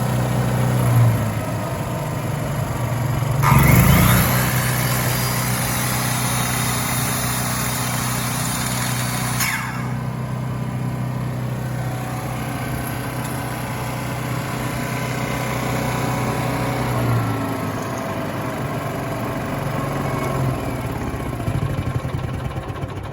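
Denyo My Welper 140GSS engine-driven welder-generator running at a steady speed. A loud hissing joins the engine note from about three and a half seconds in and cuts off suddenly after about six seconds.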